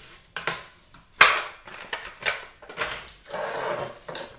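Several sharp clacks and knocks of felt-tip pens and colouring pencils being handled in their tins on a table, the loudest about a second in, then paper rustling near the end.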